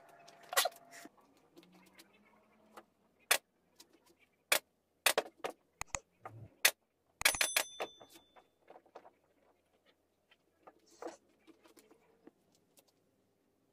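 Pneumatic upholstery staple gun firing staples into a sofa's wooden frame: a series of sharp, irregular shots, most of them bunched together in the middle, one with a brief metallic ring.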